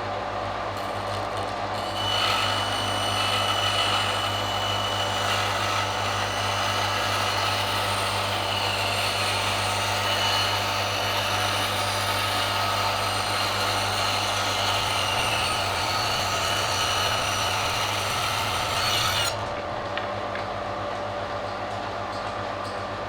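A power tool working wood starts about two seconds in, runs with a high whine for about seventeen seconds, then stops abruptly. A steady machine hum runs underneath.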